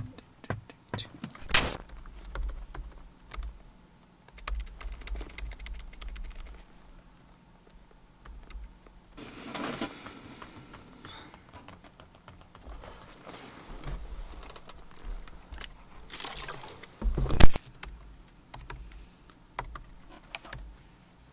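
Typing on a computer keyboard: irregular runs of key clicks, with some rustling and one louder thump late on.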